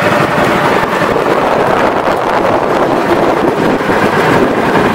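Outrigger boat under way with its engine running steadily, mixed with wind buffeting the microphone.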